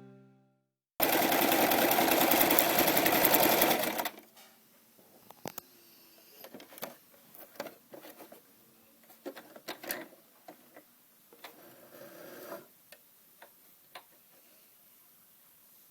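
Euro-Pro 7132L electric sewing machine stitching at speed for about three seconds, then stopping abruptly. Scattered faint clicks and knocks follow.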